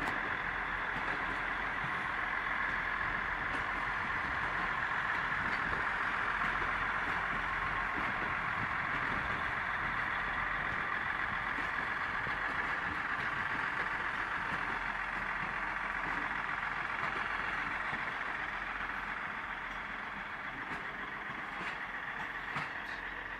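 Class 159 diesel multiple unit trains running past, a steady rumble of diesel engines and wheels on rail that eases off over the last few seconds.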